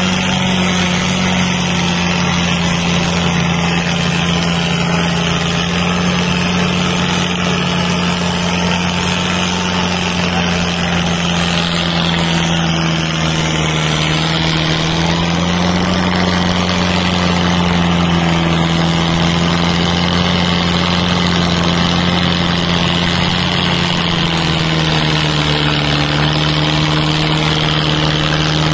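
Tractor diesel engines running steadily under load in a tug-of-war pull. Their pitch sags and recovers slightly a few times.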